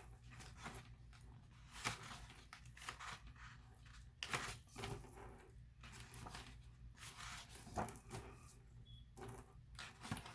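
Quiet rustling and crinkling of craft-paper sheets being leafed through and handled, with many short crackles throughout.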